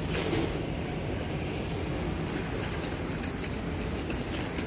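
Small wheels rolling over a tiled floor: a steady low rumble with a few faint clicks.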